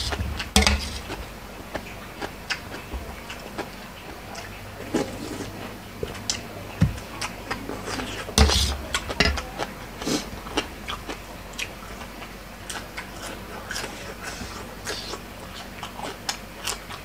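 Close-up eating sounds: biting and chewing crunchy lotus-shoot salad, with scattered short clicks that fit a metal spoon against the stainless-steel bowl. The loudest knock comes about eight seconds in.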